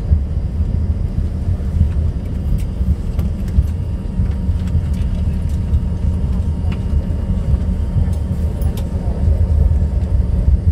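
Cabin noise of a passenger jet taxiing after landing: a steady low rumble of the engines and the aircraft rolling on the tarmac.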